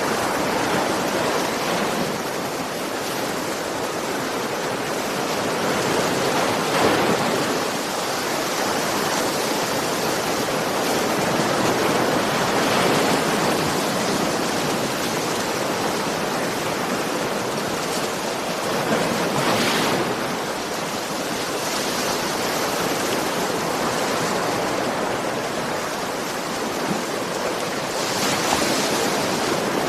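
Ocean surf: waves washing in as a continuous rush, swelling louder every six to eight seconds.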